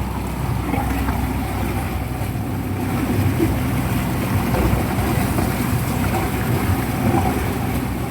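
Speedboat's twin 250 hp outboard engines running steadily, a continuous loud drone heard from on board.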